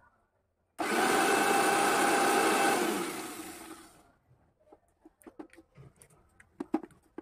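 Electric mixer grinder (mixie) running with chopped onion and water in its steel jar: a steady motor whir with a whine for about two seconds, then switched off and spinning down over about a second. A few light knocks and clicks follow as the jar is lifted off the motor base.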